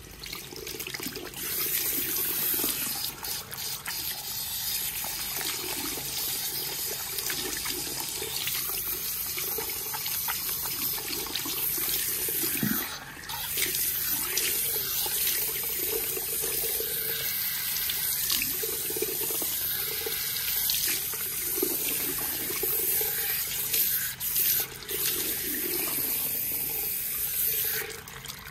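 Salon shampoo-bowl shower head spraying water through wet hair and into the basin, a steady rush of running water that briefly dips a couple of times.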